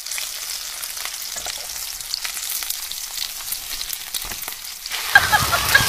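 Slices of pork belly sizzling on a hot electric grill plate: a steady frying hiss with scattered small pops, getting louder and fuller about five seconds in.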